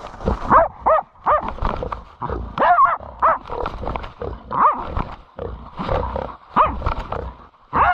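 German hunting terrier (Jagdterrier) barking: a run of short, sharp barks at uneven intervals, some coming in quick pairs, with rustling between them.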